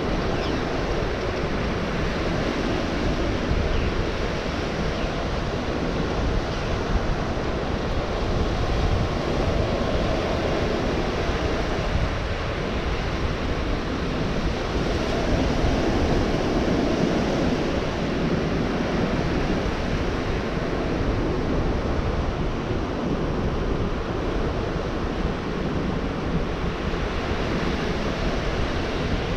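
Gulf of Mexico surf washing onto the beach in a steady wash, with slow swells as waves break, and some wind on the microphone.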